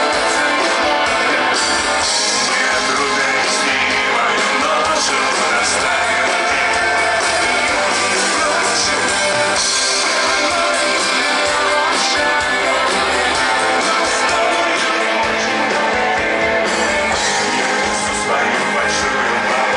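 Live rock band playing loud over a festival sound system: electric guitar, bass and drums with a singer.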